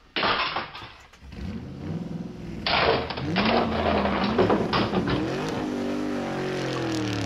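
Race-car engine sounds revving up and down, with skidding, tyre-squeal rushes of noise about two and a half and four and a half seconds in, settling into a steadier engine drone near the end. These are toy-play race sounds for toy monster trucks being launched down a track.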